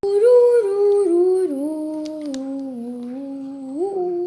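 A person humming a short tune: held notes stepping down in pitch one after another, then jumping back up near the end.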